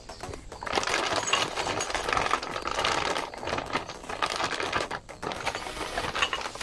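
Crinkly packaging being handled and rustled, a dense crackling that starts about a second in and runs with many small clicks, easing briefly once before near the end.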